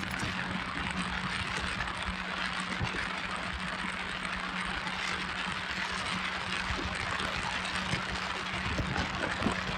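Motorboat under way: a steady engine hum under a continuous rush of wind and water noise.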